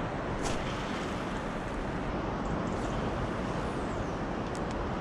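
Steady outdoor rushing noise with no distinct events, an even roar strongest in the low end.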